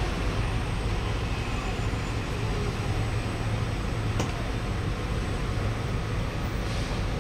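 Steady low hum inside a Kawasaki–CRRC Sifang C151B MRT car standing at a station with its doors open, with a single sharp click about four seconds in.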